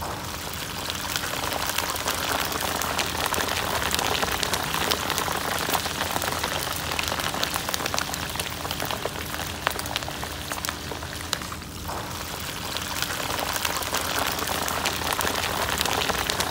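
Small shrimp deep-frying in a wok of hot oil: a steady, dense sizzle and crackle of many small pops as the shrimp are tipped into the oil and fry.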